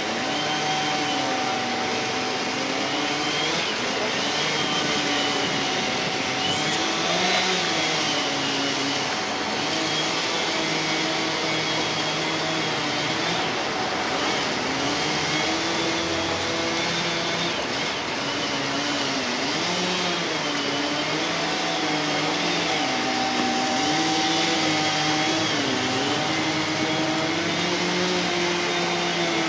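Engines of tree-felling machinery, a hydraulic excavator with a felling head and chainsaws, running without a break. Their pitch keeps wavering up and down as they rev and ease off.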